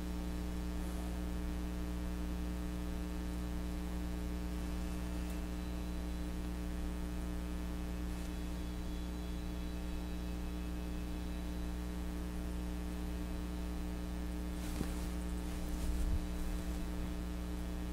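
Steady electrical mains hum with a row of overtones, unchanging throughout, with one faint click near the end.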